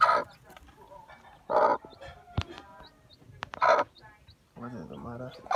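Mother hen giving loud clucking calls about every two seconds. Between them come the faint, high, quick peeps of her young chicks.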